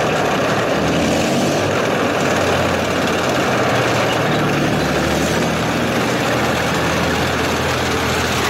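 Heavy Soviet ISU-series tracked self-propelled gun driving past, its V12 diesel engine running with a steady low drone under the constant noise of its tracks on the pavement.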